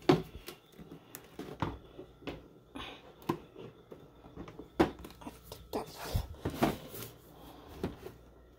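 Scattered clicks, taps and knocks of hands handling and positioning a plastic one-cup coffee maker. The sharpest knocks come right at the start and about five seconds in.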